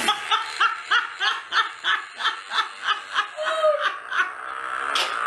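Women laughing hard together: a rapid run of 'ha-ha-ha' pulses, about four a second, that gives way to a longer drawn-out laughing note about four seconds in.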